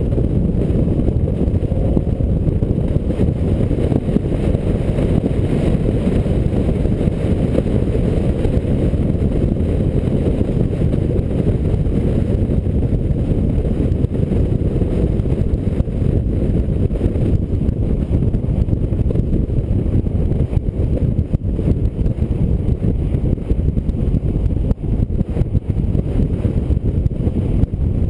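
Steady low rumble of wind buffeting and road noise at a roof-mounted camera on a car cruising at highway speed, with no distinct engine note.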